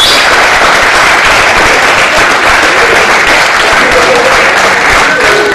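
Audience applauding: dense, steady clapping, with a voice or two calling out near the end.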